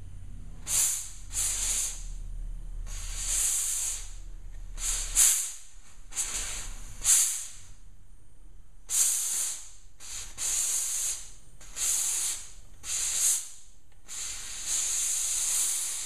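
Pen-style sandblaster gun fed from a pressure pot, blasting abrasive onto stencilled glass in about a dozen short hissing bursts of varying strength, with a longer burst near the end. Each burst starts and stops as the foot pedal valve is pressed and released.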